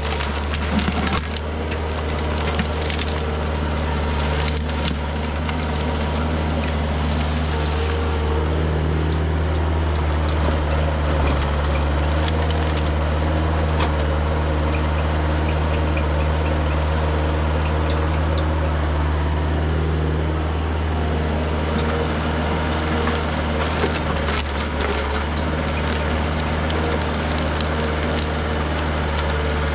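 Kubota mini excavator's diesel engine running steadily as it works. Brush branches crack and snap under the bucket, densely in the first few seconds and again about three-quarters of the way through.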